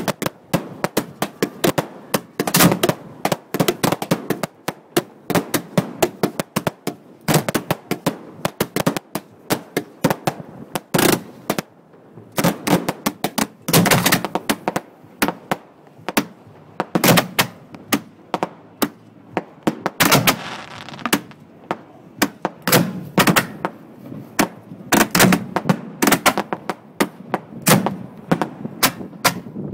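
A fireworks display fired at close range from racks of mortar tubes on a barge: a dense, irregular volley of sharp bangs, several a second.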